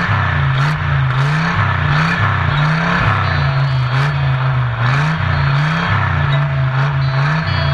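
NASCAR stock car V8 engines revving, the pitch climbing and dropping again about once a second.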